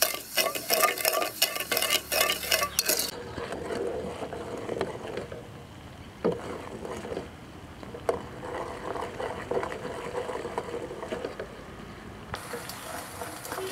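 A wooden spoon stirring wet sugar in a metal pot, with rapid gritty scraping strokes as the undissolved grains rub the pot. About three seconds in this gives way to a quieter sound of the sugar syrup boiling, with the spoon stirring through it and an occasional knock against the pot.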